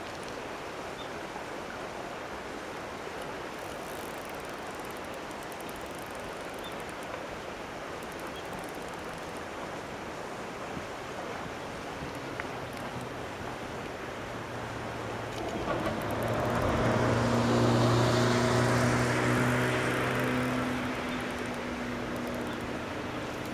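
Steady outdoor background noise, then an engine hum that comes in about halfway through, grows loudest a few seconds later and eases off while still running.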